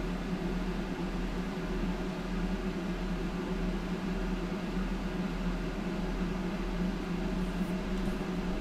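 Steady hum with a hiss from a computer's cooling fans running hard under the load of a long render.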